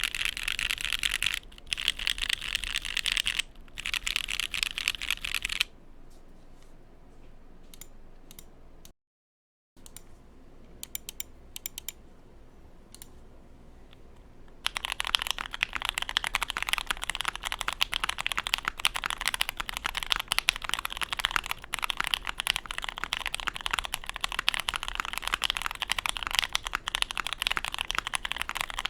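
Fast, continuous typing on a Bakeneko mechanical keyboard with lubed JWK Pewter linear switches, an FR4 half plate and ABS keycaps: a dense run of keystroke clacks. It stops about six seconds in, leaving only a few stray clicks, then resumes about fifteen seconds in with masking tape across the underside of the PCB, which the builder finds deeper and thockier.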